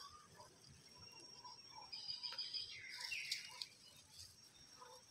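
Faint rustling and small clicks from hands handling a nylon snare cord among dry bamboo leaves, with a faint steady high tone behind.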